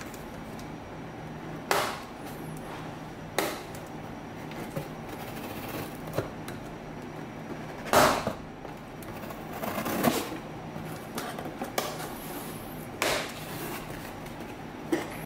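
A cardboard shipping box being opened by hand: a craft knife slitting its packing tape, then the flaps being pulled open, giving about half a dozen short, sharp scrapes and knocks, the loudest about eight seconds in.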